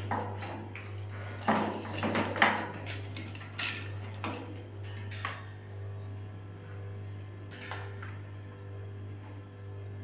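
Metal clinking and rattling of a wire birdcage as a lory clambers on the bars, in a run of irregular clicks over the first half and a short cluster near the end, over a steady low electrical hum.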